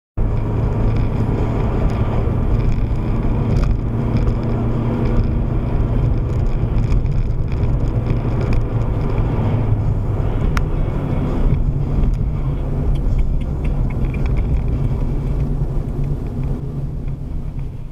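Steady engine and road-tyre rumble heard from inside a moving car's cabin, with a small click about ten seconds in, growing quieter near the end.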